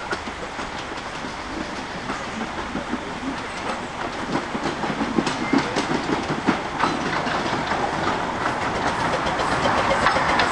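15-inch gauge steam locomotive and its carriages approaching along the track, growing steadily louder as it nears, with a run of short sharp clicks and knocks from the running gear and rails.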